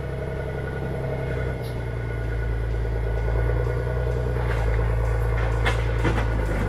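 A heavy forestry machine's engine running steadily with a low hum, growing slightly louder, with a few sharp knocks about four to six seconds in.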